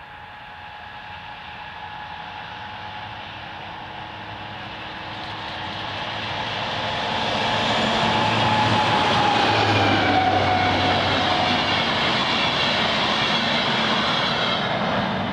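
DB class 218 diesel-hydraulic locomotive approaching and passing with a passenger train: its engine grows steadily louder, a whining tone falls in pitch as it goes by, and the coaches' wheels roll past on the rails.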